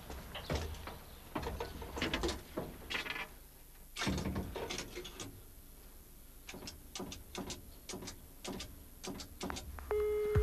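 Handling sounds in a public phone booth: knocks and rattles as the door and handset are worked, then a run of quick sharp clicks as a number is dialled. Near the end a steady ringing tone starts in the earpiece.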